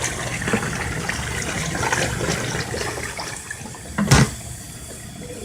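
Portable twin-tub washing machine running: water sloshing and draining over the low hum of its motor, with small clicks. The sound quiets past the middle, and a single sharp knock comes about four seconds in.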